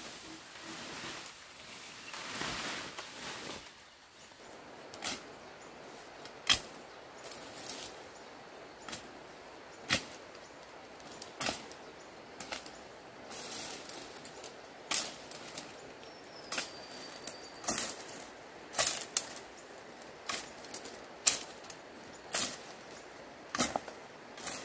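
A machete chopping through brush and thin stems, with sharp single chops at irregular intervals, roughly one every second or two. A rustling of leafy branches being dragged comes first, in the opening few seconds.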